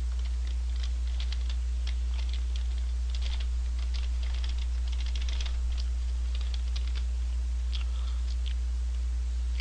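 McDonald's paper fry bag crinkling in the hands as it is held up and turned, a run of small irregular crackles, over a steady low hum.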